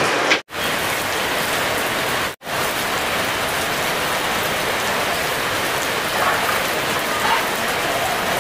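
Steady heavy rain, an even hiss that cuts out for an instant twice in the first few seconds.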